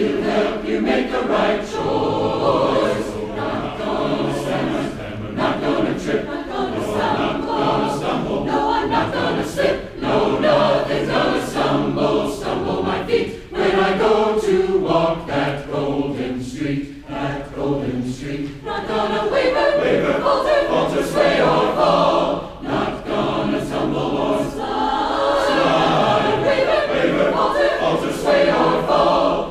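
Large mixed choir singing a gospel-style choral song, many voices in harmony.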